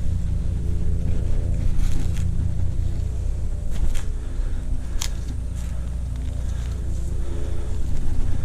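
A motor running steadily with a low rumble, and a few sharp clicks or knocks over it.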